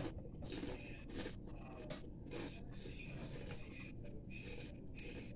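Faint scrapes and clicks of chopsticks stirring and lifting ramen noodles in a glass bowl.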